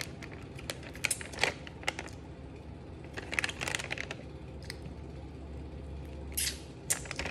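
Plastic Little Bites snack pouch being handled, giving short crinkles and clicks every second or so, mixed with mouth smacks as sticky fingers are licked.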